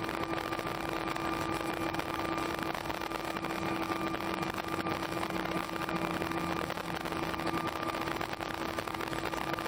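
Steady cabin noise inside an Airbus A319 taxiing after landing, with the engines at idle and an air hiss. A constant low hum and a fainter, higher steady tone run under it.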